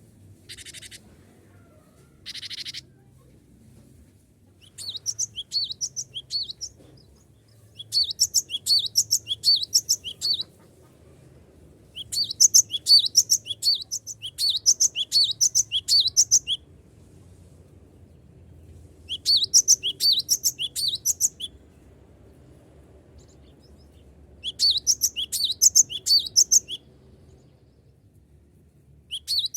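Cinereous tit (glatik batu) singing in bouts of fast, repeated high notes, each bout two to four seconds long with pauses between. This is the loud song keepers play to draw rival birds into singing. Two short buzzy notes come in the first three seconds.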